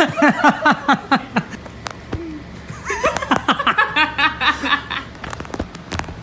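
A person laughing hard in quick repeated "ha" syllables, each falling in pitch. One bout fades out about a second and a half in, and a second bout starts about three seconds in and lasts some two seconds. A few sharp clicks come near the end.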